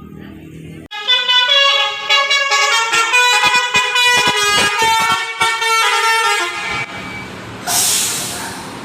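Bus basuri horn, a multi-tone air horn, playing a stepped melody of changing notes for about six seconds, starting sharply about a second in. A short burst of hiss follows near the end.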